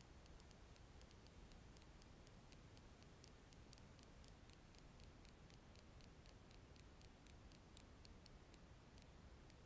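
Near silence in a car's cabin, with a car's turn signal ticking faintly and evenly, about three ticks a second.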